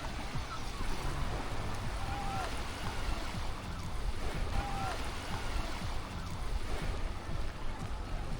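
Small Black Sea waves washing onto the shore, with wind on the microphone adding a low rumble. A few faint short high calls come through about half a second, two and a half and five seconds in.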